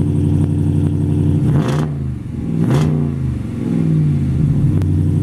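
2018 Ram 3500's 6.4-litre Hemi V8 idling, blipped three times in quick succession from about a second and a half in, each rev rising and falling in pitch before settling back to idle.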